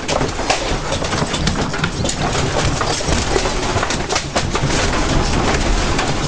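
Room contents rattling and clattering during earthquake shaking: a dense run of sharp knocks and clicks from furniture, shelves and loose objects over a continuous low rumble.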